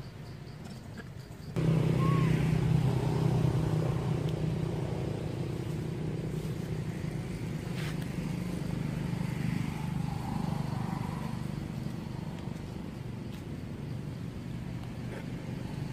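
A motor vehicle's engine running steadily, a low even hum that comes in abruptly about a second and a half in.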